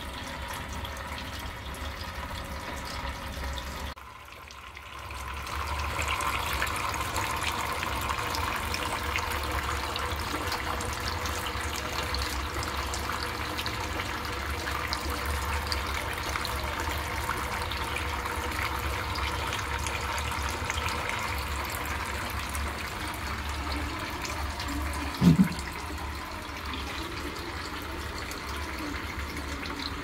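Homemade tabletop fountain running: thin streams of water falling from a tray onto stones and into the basin, a steady splashing trickle over a low hum. The water sound dips briefly about four seconds in and fills out again, and a single thump sounds near the end.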